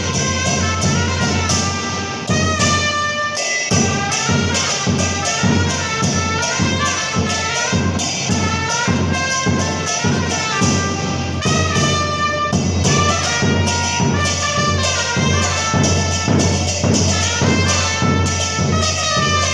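Two trumpets playing a cumbia melody over a steady beat on a bombo murguero, the Argentine murga bass drum. The drum drops out briefly about three seconds in, then picks up again.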